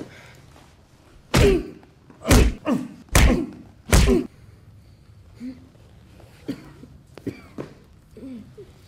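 Blows and body impacts in a staged fistfight: five heavy thuds in about three seconds, the last two a second apart, followed by a few faint short sounds of movement and breath.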